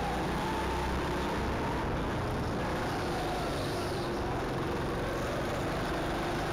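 Go-kart driving at speed, heard on board: a steady motor note that wavers slightly in pitch over a constant rush of noise.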